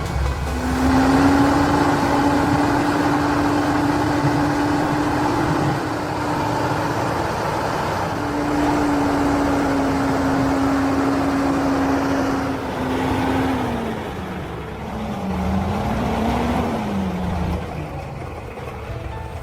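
Logging truck engine held at high, steady revs under load for about thirteen seconds, easing briefly about halfway, as it works the truck through mud. Near the end the pitch drops and wavers up and down before the engine eases off.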